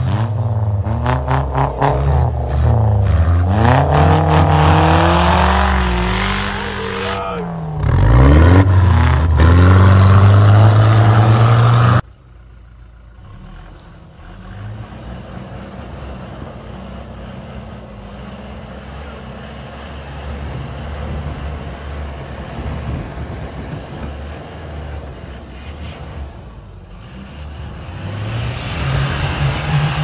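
Toyota Hilux pickup's engine revving hard, its pitch swinging up and down as the truck pushes through deep snow. About twelve seconds in it cuts off abruptly to a quieter, steadier engine hum, which rises again near the end as the truck climbs a snowy bank.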